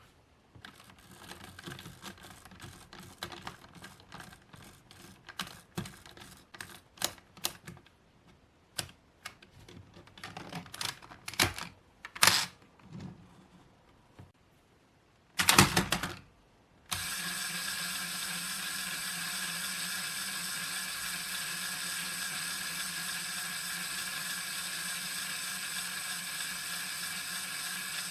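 Plastic toy parts being handled, with scattered clicks and snaps and a louder clatter about 15 seconds in. Then, a little later, the Zeroliner Drill toy's drill starts spinning with a steady motor whir.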